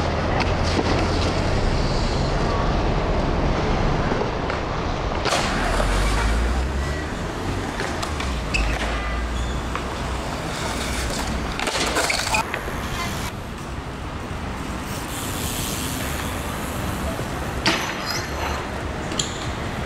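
Skateboard and BMX riding on concrete: wheels rolling with a low rumble, with street traffic noise and a few sharp knocks of boards or wheels hitting the ground. The sound changes abruptly about five seconds in.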